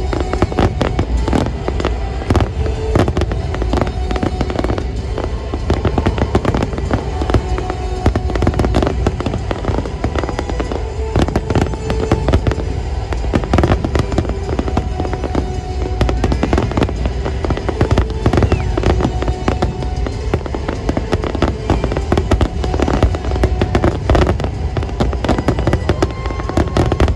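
Fireworks display in full barrage: rapid, dense bangs and crackles without let-up, with music playing underneath.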